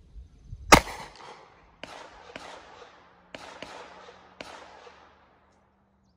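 A single loud shot from a Taurus Raging Hunter revolver, with a long ringing tail, a little under a second in. Five much fainter sharp bangs follow over the next few seconds, and the sound cuts off abruptly just past five seconds.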